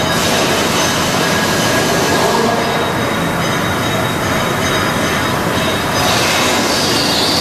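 Train rolling on rails with a steady loud running noise and a thin high wheel squeal, the squeal stronger near the end.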